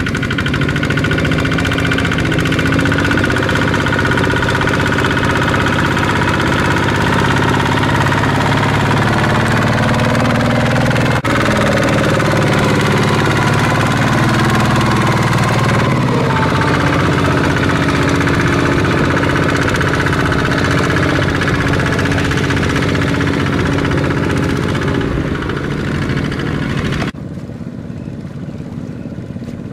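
Single-cylinder diesel engines of two-wheel walking tractors running steadily under load, pulling loaded trailers through paddy mud. The sound becomes quieter and more distant near the end.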